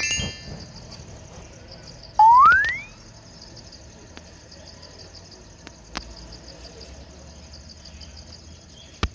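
A loud whistle-like sound effect gliding upward in pitch for under a second, about two seconds in. It plays over a steady high-pitched chirring background, with a couple of faint clicks later.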